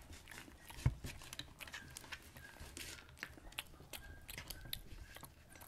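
Quiet crinkling of a paper sheet and small clicks and crackles as hands break pieces off a no-bake chocolate cookie nest, with a soft thump about a second in.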